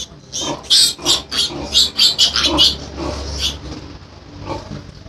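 Piglet squealing while being handled: a rapid run of short, shrill squeals, several a second, loudest from about half a second to three and a half seconds in, then only a few fainter ones.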